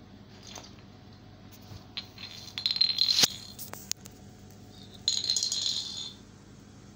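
Two short bursts of light rattling and clicking, the first about two seconds in ending in a sharp click, the second about five seconds in.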